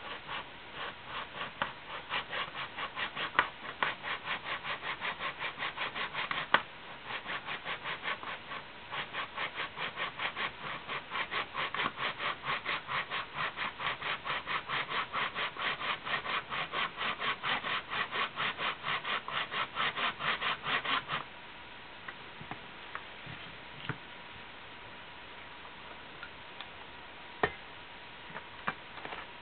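Steady back-and-forth strokes of a hand tool cutting or rasping a small workpiece, about two to three strokes a second. The strokes stop about two-thirds of the way in, and a few light clicks and taps follow.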